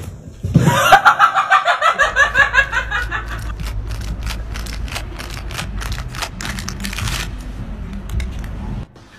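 A person laughing in quick bursts over the first few seconds, then wind rumbling on the microphone with a quick run of sharp crackles that stops about seven seconds in.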